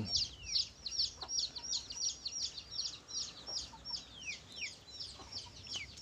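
Chicks peeping: a steady run of short, high chirps, each a quick falling note, several a second and overlapping as from many birds at once.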